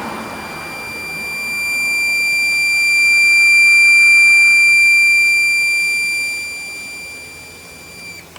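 Homemade Morse code practice oscillator sounding one continuous high-pitched tone through its speaker, growing louder and then softer as its volume control is turned up and back down. The tone cuts off near the end.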